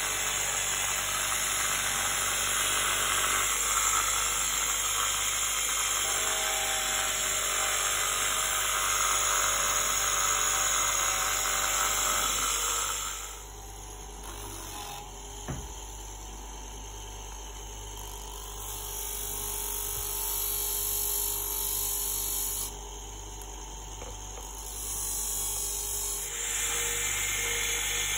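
Bench grinder running, with the steel jaws of cuticle nippers pressed against its spinning wheel: a steady grinding hiss over the motor's hum. About halfway through the grinding hiss drops away, leaving mostly the motor, and it comes back twice, last near the end.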